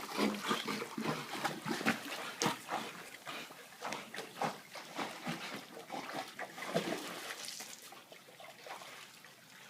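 A dog splashing about in water, a run of irregular splashes and rustles that thins out and grows quieter over the last couple of seconds.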